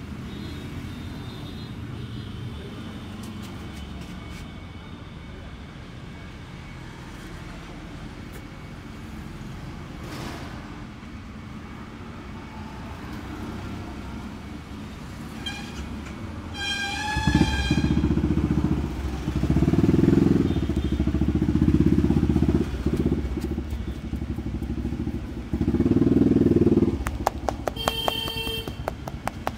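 Road traffic: a steady low rumble that grows much louder a little past halfway as engines pass close, with two brief high pitched tones, one a little past halfway and one near the end.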